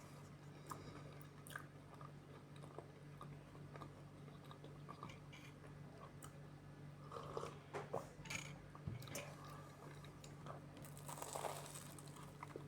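Faint eating sounds: chewing with crunchy bites and small mouth clicks. Louder bouts of crunching come about seven seconds in and again near the end.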